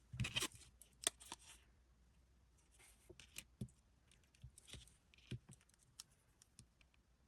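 Faint handling of a blind box's packaging and its contents: scattered small clicks and short rustles, busiest in the first second and a half, then sparser taps.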